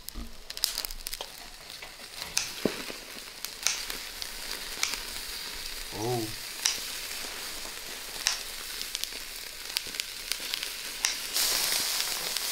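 Eel fillets sizzling on a wire grill over charcoal, a steady hiss with scattered sharp clicks about once a second. The sizzle grows louder about a second before the end.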